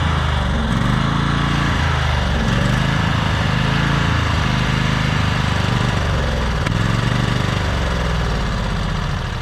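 20 horsepower Briggs and Stratton lawn tractor engine running with its oil drained, its speed rising and falling about once a second. The level starts to sag near the end.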